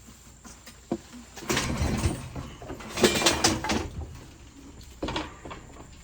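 Papers and small cardboard boxes being handled and shuffled: a few irregular rustles and knocks, the loudest a little after halfway through.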